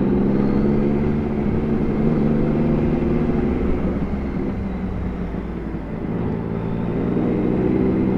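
Yamaha MT-series sport motorcycle engine running while riding, holding a steady note. It eases off briefly about five seconds in, then picks back up.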